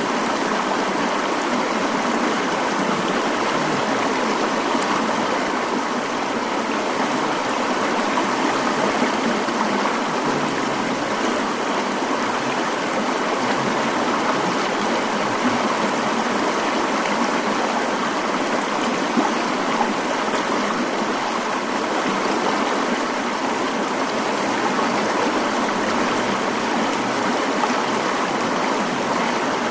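Mountain stream flowing: a steady, even rush of water that does not change.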